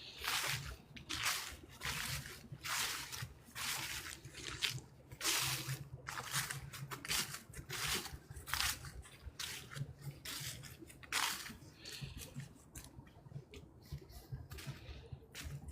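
Footsteps crunching through dry fallen leaves at a steady walking pace, about one and a half steps a second, growing softer after about eleven seconds.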